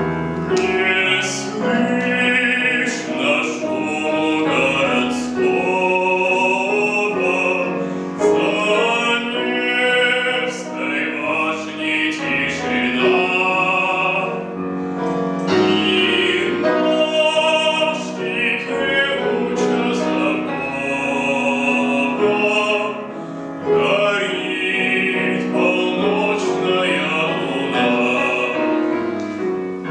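Male classical singer performing a Russian folk song in an operatic voice with piano accompaniment, long held notes with wide vibrato in phrases separated by short breaths.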